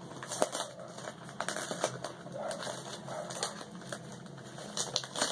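Christmas wrapping paper and tape on a small gift box being picked at and torn open by hand, giving irregular sharp crackles and ticks.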